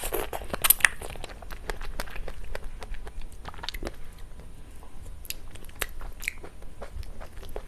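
Close-miked eating of cake: biting and chewing with many small wet mouth clicks, loudest in a cluster of bites within the first second.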